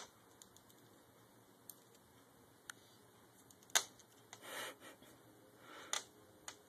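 Faint scattered clicks and light taps with two short soft rustles, from a kitten playing with window blind tassels and cords. The sharpest tap comes a little under four seconds in.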